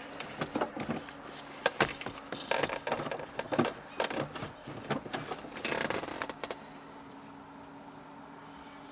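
A run of irregular clicks, knocks and rustles of hands handling parts in a car's dashboard radio opening. After about six and a half seconds the handling stops, leaving a faint steady hum.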